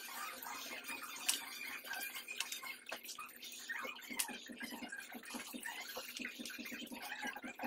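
Grooming scissors snipping through a dog's long coat: a few sharp clicks over faint rustling of fur and hands.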